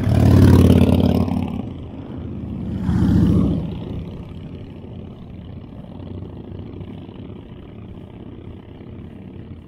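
Motorcycle engines passing close by, one swell of engine noise right at the start and another about three seconds in, both fading as the bikes pull away. After that comes a steady rush of wind on the microphone as the bicycle rolls along.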